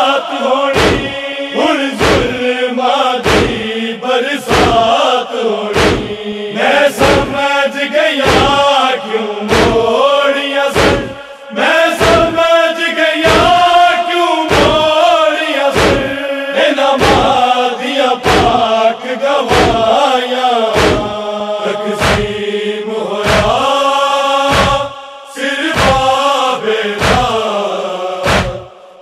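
A group of men chanting a Punjabi noha, a Shia lament, in unison, over a steady beat of chest-beating (matam), about two strokes a second.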